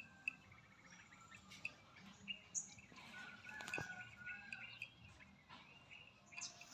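Faint, scattered bird chirps, with a single sharp click about halfway through.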